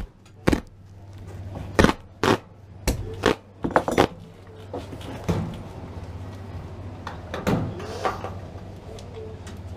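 Old stapled-down carpet and pad being pulled up off a floor by hand: irregular sharp snaps and knocks, most of them in the first four seconds, with a last loud one near eight seconds. A steady low hum runs underneath.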